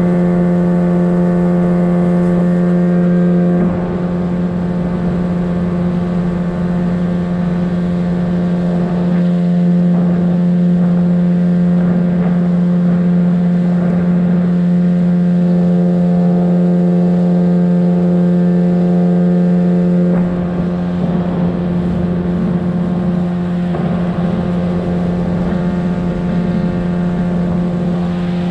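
A motorboat's engine running at a steady speed while under way, one even droning tone that dips slightly in loudness about four seconds in and again about twenty seconds in.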